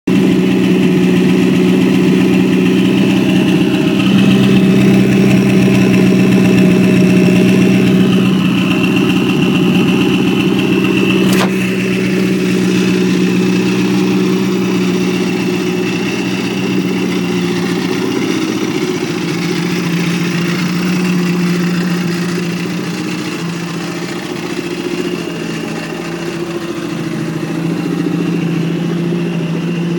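Mini's 1330 engine with a side-mounted turbo idling steadily, a high steady turbo whistle riding over the engine note. A single sharp click about eleven seconds in.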